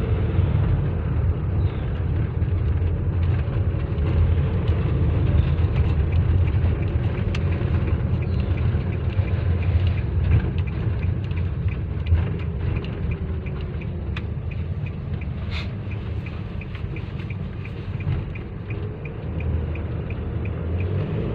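Nissan NV350 van driving, heard from inside the cabin: steady engine and road rumble, with a light, evenly repeating ticking in the second half.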